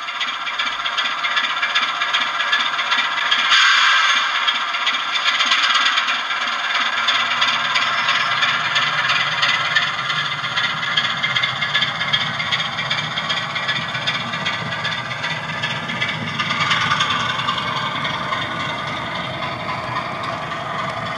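Model Class 25 diesel locomotive's DCC sound decoder playing its diesel engine under load as the locomotive pulls away with a train of coaches, together with the rattle of the model's wheels over the track. The engine note deepens and grows about 7 s in.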